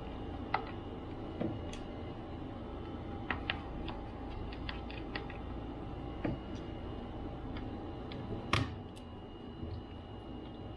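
Irregular light clicks and taps of a screwdriver and small parts on a laptop being taken apart, with one sharper click about eight and a half seconds in, over a steady low hum.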